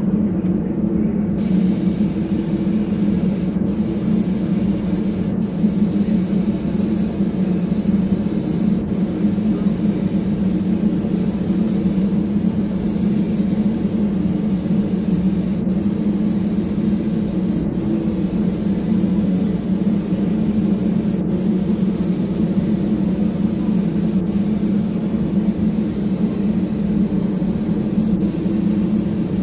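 Compressed-air hiss of a gravity-feed paint spray gun spraying base coat onto lure bodies, coming in about a second in and broken by several very brief pauses. Underneath it runs a steady low hum.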